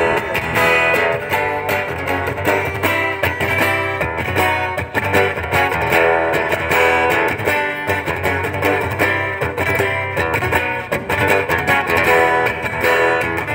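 Instrumental rock music: electric guitar playing over bass guitar, with no singing.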